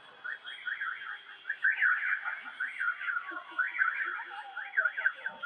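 Electronic siren warbling in rapid rising-and-falling chirps, several a second, starting about half a second in.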